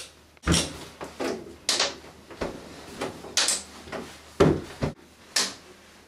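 Interior door being handled and opened: a string of irregular clicks, knocks and rattles, about eight in six seconds.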